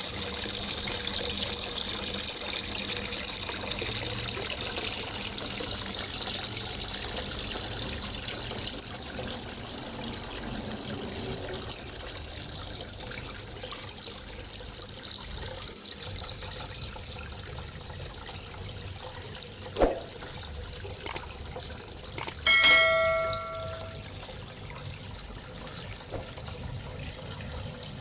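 Water running and trickling steadily. Near the end a short bell-like chime rings for about a second, just after a sharp click.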